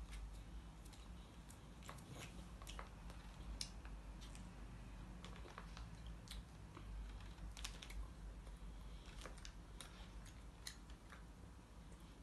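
Faint, irregular clicks and smacks of a small child eating rice and chicken with his fingers: mouth sounds while chewing and fingers on the plate, over a low steady hum.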